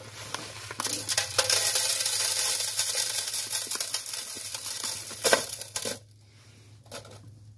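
Paydirt poured from a foil bag onto the wire-mesh screen of a plastic classifier: a steady hiss of sand with many small clicks of gravel, and a louder rattle about five seconds in. It stops about six seconds in.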